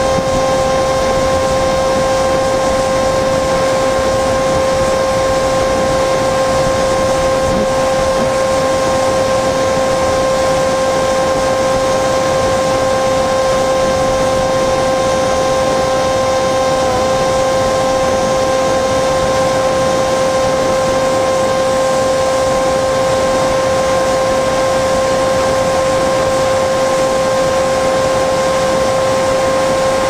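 Electric motor and propeller of a Flinch FPV flying wing heard from its onboard camera: a steady high whine held at one pitch, over a constant rush of wind noise.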